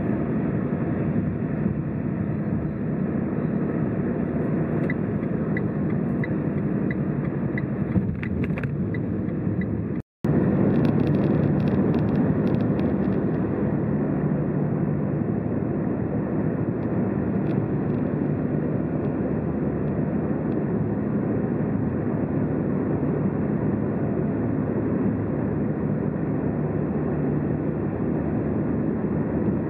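Car driving at motorway speed: steady tyre and engine noise. From about five seconds in, a light regular ticking at about two a second runs for a few seconds. A third of the way through, the sound cuts out for an instant and comes back a little louder.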